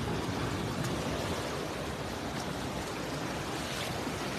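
Steady rush of water pouring over a low concrete spillway and churning in the pool below.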